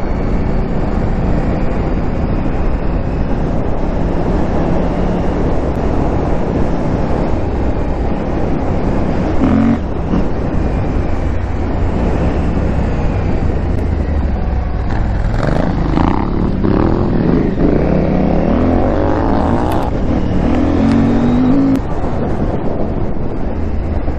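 KTM 890 Adventure R's parallel-twin engine running under way off-road, under a steady rush of road and wind noise. In the second half the engine note rises and falls with the throttle.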